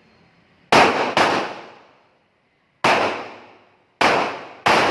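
Pistol shots: five sharp reports in uneven pairs, one a second or so after another, each followed by a ringing tail that dies away over most of a second.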